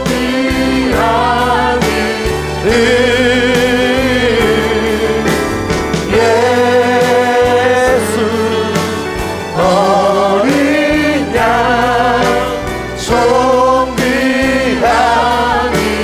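Praise team singing a Korean contemporary worship song, phrases of two or three seconds with long, wavering held notes over steady accompaniment.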